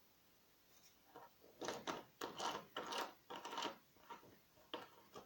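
Small clicks and scrapes of a pin-tumbler lock cylinder and its parts being handled and fitted back together, in a quick run of taps about a second and a half in, then a few fainter ones.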